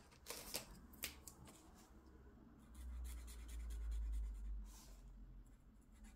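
Coloured pen writing and marking on a paper savings sheet, with a few light clicks and taps in the first second. A low rumble of handling noise about halfway through is the loudest sound.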